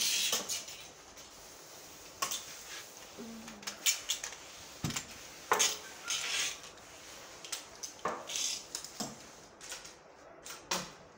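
Irregular light knocks and clatter with a few short swishes as a long-handled mop is worked over a wet hard floor.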